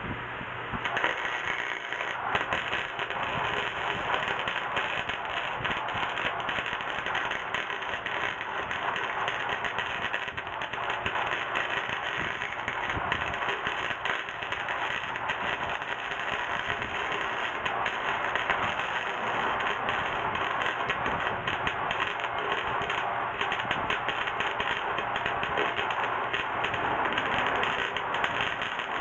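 Welding arc from an Astro Products welder crackling steadily as it fills a hole in a motorcycle muffler, starting about a second in.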